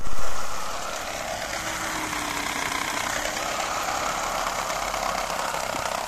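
Water rushing through a hand-held impeller-type magnetic water flow sensor and spraying out of its outlet, a steady rushing noise that starts suddenly, loudest in the first moment.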